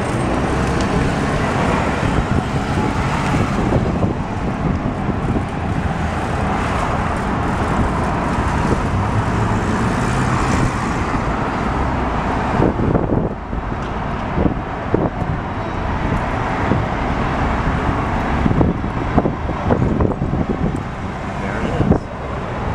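City street traffic heard from a moving open pedicab: cars and taxis running close by, with a steady rush of road noise. From about halfway through there are several short, sharp knocks.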